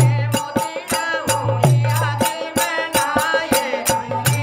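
Rajasthani folk bhajan played live: a harmonium holding a drone note under a dholak beating a quick, steady rhythm of about four strokes a second, with a man's voice singing over it.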